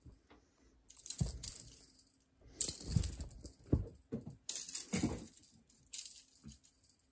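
An excited cat pouncing and scrambling on a wooden floor: four short bursts of thumps and scrabbling, each with a bright high rattle over it.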